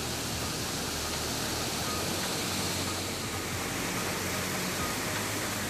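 Water pouring over a dam spillway: a steady, even rush.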